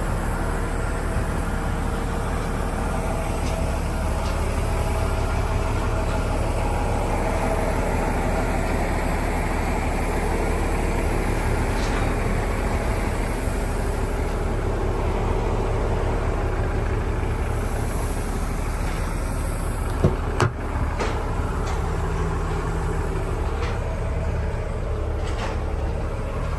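Toyota Hilux engine idling steadily. About twenty seconds in there is a single sharp clunk, such as a door latch.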